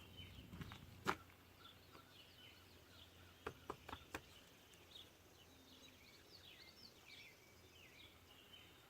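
Faint birds chirping in the background, with a few soft clicks, one about a second in and a quick cluster around the middle.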